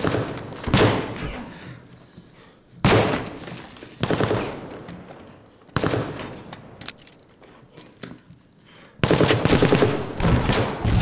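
Gunfire in a firefight: heavy volleys of rifle shots with echoing cracks, coming a second or two apart, then a longer rapid burst near the end.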